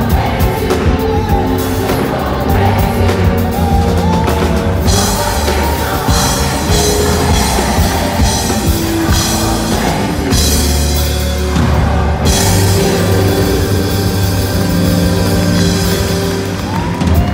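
Live gospel choir singing with its band of keyboard, bass guitar and drums, loud and full. The drums and cymbals get busier about five seconds in.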